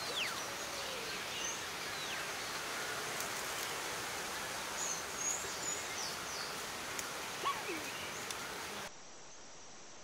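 Forest ambience: a steady hiss with several birds calling over it, short high chirps and a few clear whistles sliding down in pitch. About nine seconds in it cuts abruptly to a quieter, even background.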